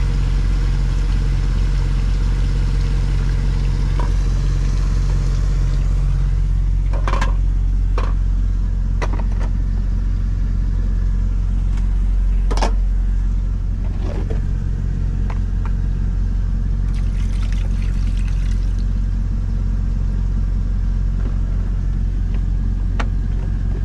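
Truck's diesel engine idling steadily, heard inside the cab, with a few sharp clinks and knocks of a pot and its glass lid being handled.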